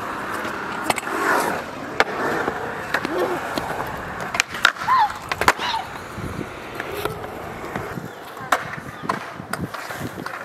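Skateboard wheels rolling over a concrete skatepark surface, broken by several sharp clacks of the board striking the ground.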